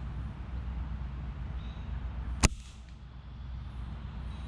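A single sharp shot from an airsoft sniper rifle about two and a half seconds in, over a steady low background rumble; the BB misses the gel target.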